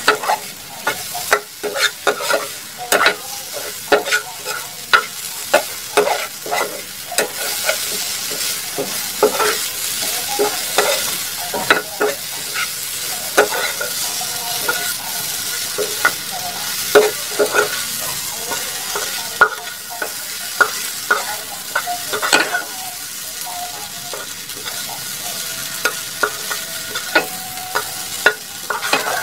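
Sliced okra and onion sizzling in a small frying pan while a spatula stirs and tosses it, with frequent irregular clinks and scrapes of the spatula against the pan over a steady hiss.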